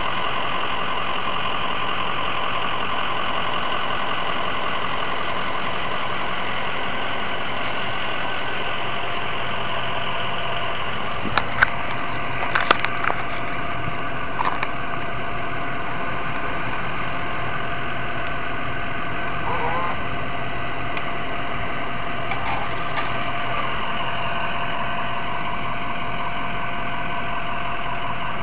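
Steady mechanical hum, with a cluster of sharp metallic clicks and clinks about halfway through and a lighter clatter a second or so later as the soda vending machine is worked. A steady tone joins the hum from the clicks onward.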